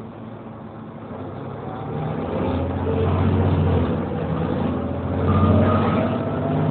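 Volvo B7TL double-decker bus's diesel engine accelerating, heard from inside the passenger saloon, with a faint whine rising in pitch. It grows louder from about two seconds in, eases briefly around four seconds, then builds again.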